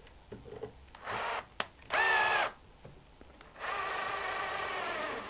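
Cordless drill-driver driving a screw into a small wooden support block. The motor whines in three runs: a short one about a second in, a louder half-second one, then a steady run of about a second and a half near the end.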